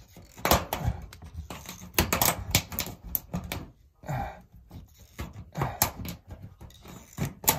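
Tin snips cutting through a steel roofing panel: a run of sharp, irregular snips and crunches as the blades bite and the metal tears.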